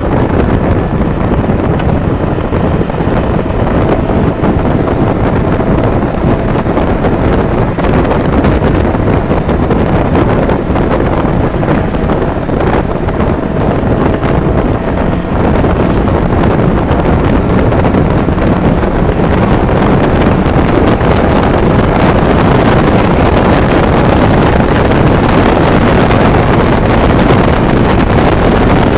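A 1992 Miata's 1.6 B6 inline-four engine running under way, mixed with heavy wind buffeting on the microphone and road noise; the engine has a rod knock. The sound grows a little louder in the second half.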